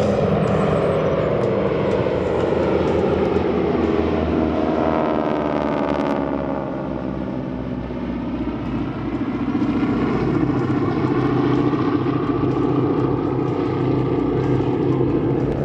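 Three Harvard trainers' Pratt & Whitney R-1340 radial engines and propellers droning in a formation flypast. About five seconds in the pitch slides down as the formation goes by, then the drone holds steady again.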